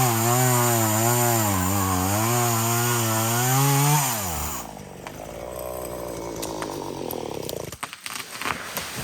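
Chainsaw cutting through poplar wood, the engine pitch wavering as the chain bites under load. About four seconds in the throttle is released and the engine falls to a quieter idle, with a few knocks near the end.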